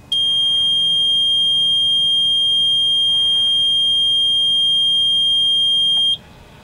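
A boat's dash warning buzzer sounding one loud, steady, high-pitched tone for about six seconds as the helm electronics are switched on, then cutting off suddenly.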